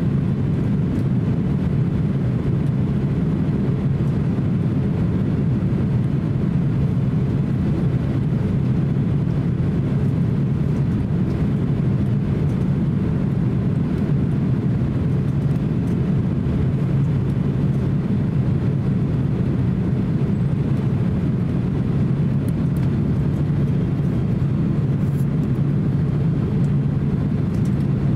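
Steady low drone inside the cabin of a Boeing 767-300 airliner on final approach, mostly engine and airflow noise, heard from a window seat beside the engine. It holds an even pitch and loudness throughout.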